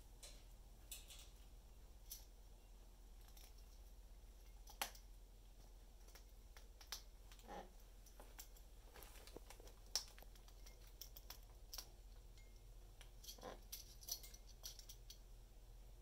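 Faint, scattered clicks and ticks of an Amazon parrot's beak working at a wooden stick with a small bell attached, with a couple of sharper ticks and two brief low sounds along the way.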